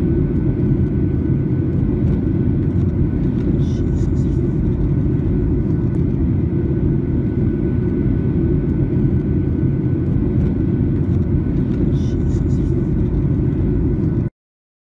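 Steady roar of a jet airliner's cabin in flight, engine and airflow noise heavy in the low end with a faint steady whine over it. It cuts off suddenly near the end.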